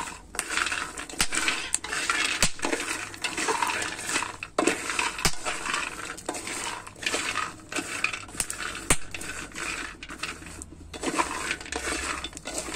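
Cacao beans being stirred with a wooden spatula in a hot pan while dry-roasting. The beans give an irregular rattling, scraping hiss as they slide and tumble over the pan, with sharp clicks every second or so.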